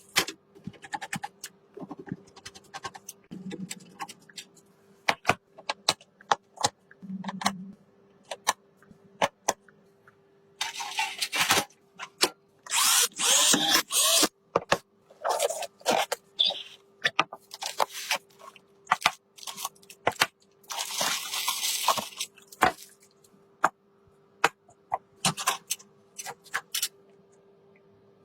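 Computer parts being handled and fitted: many sharp clicks and taps, with three longer scraping or rustling stretches about 11, 13 and 21 seconds in, over a faint steady hum.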